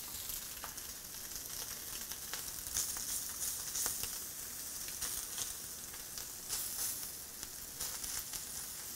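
Spam slices sizzling steadily on a hot ridged grill pan with small crackles, the sizzle swelling briefly a few times as they are brushed with teriyaki sauce.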